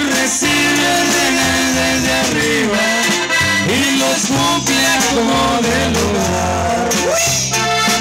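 Live norteño band playing an instrumental passage: a Hohner button accordion carries the melody over a twelve-string bajo sexto, electric bass and drum kit.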